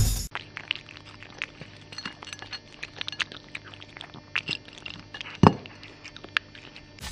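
Cat crunching dry food from a dish: irregular small crunches and clicks, with one louder click about five and a half seconds in, over a faint steady hum.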